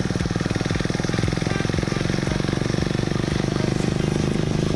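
Vehicle engine running steadily while driving, with a fast, even pulse.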